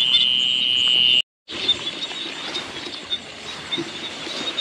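Night-time insect chorus of crickets: a steady, high chirring until a brief dropout about a second in, then a busier mix of high chirps with faint clicks and patter.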